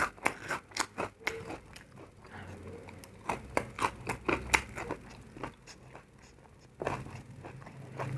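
Close-miked crunching and chewing of a crunchy food: a quick run of sharp crunches in the first second or so, another cluster a little past the middle, then a few scattered bites.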